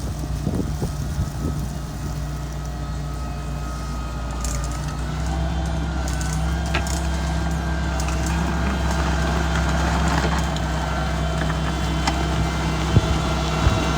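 Mitsubishi MG430 motor grader's diesel engine running steadily. About a third of the way in its note steps up and grows louder, with a few sharp cracks.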